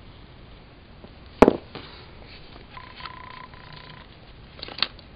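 Tabletop handling sounds of sticker work: one sharp click about a second and a half in, then a few lighter taps near the end. In the middle, a short steady electronic beep sounds in a couple of pieces.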